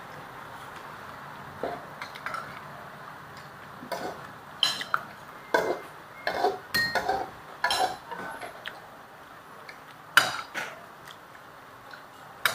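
Metal tongs clanking and scraping against a metal wok while vegetables are stir-fried, in irregular clinks that come thickest in the middle, over a steady hiss.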